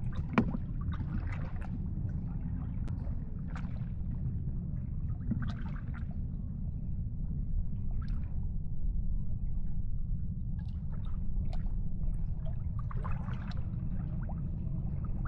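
Small boat sitting on the water: a steady low rumble with scattered short splashes and gurgles, and one sharp knock about half a second in.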